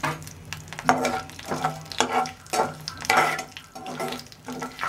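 Urad dal and mustard seeds sizzling in hot ghee in a kadai, with a spatula stirring and scraping the pan in strokes about every half second: the dal is being fried for the tempering until it turns reddish.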